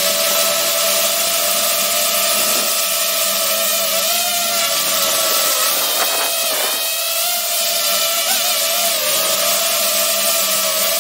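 DJI FPV racing drone's electric motors and propellers whining steadily in flight, heard up close from a camera mounted on the drone, the pitch shifting slightly up and down.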